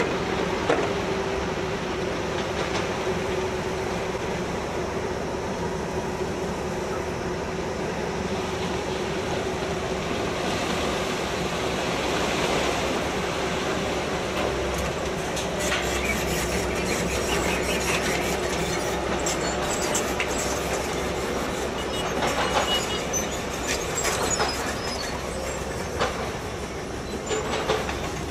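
Diesel engines of crawler excavators running steadily under load, with a constant hydraulic whine. From about halfway on, stones clatter and knock irregularly against steel as the bucket moves crushed rock.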